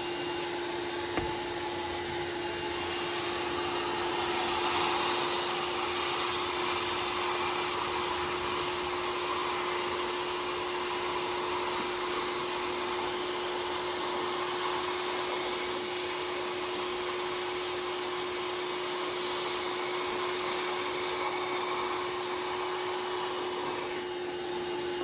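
Rug Doctor carpet cleaner's vacuum motor running steadily with a constant hum. The suction hiss swells and eases as the upholstery tool is worked over the seat belt.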